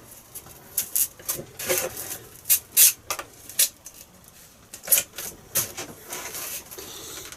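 Workbench handling noise: a dozen or so sharp, irregular clicks and taps of tools being picked up and set down, with a brief rubbing sound about six seconds in.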